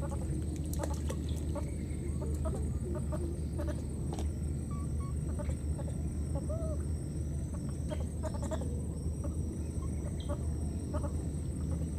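Chickens clucking in short, scattered calls, over a steady low rumble and a thin, steady high-pitched tone.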